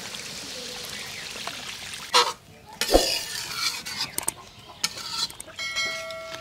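Catfish frying in spice paste in a pan: a steady sizzle for about two seconds. Then the pan is stirred, with irregular scrapes and clinks of the spoon against the pan.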